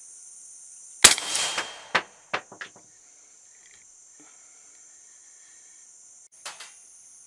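A single rifle shot, likely a 300 Blackout, cracks about a second in and rings away over most of a second, followed by three quick sharp knocks. A steady high buzz of crickets or similar insects runs underneath.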